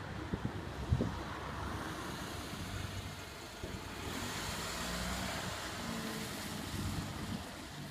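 A vehicle passing close by, its noise swelling from about four seconds in and easing off near the end, with a few low thumps in the first second.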